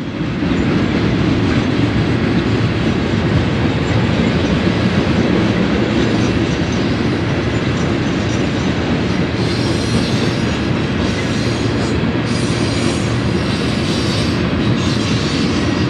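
Freight cars of a BNSF manifest train rolling past close by: a steady heavy rumble of steel wheels on rail. High-pitched wheel noise comes and goes over the last six seconds.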